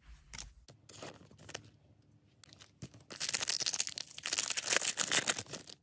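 A few light clicks of cards being handled. Then, about three seconds in, a Disney Lorcana booster pack's foil wrapper crinkles and tears loudly as it is ripped open by hand.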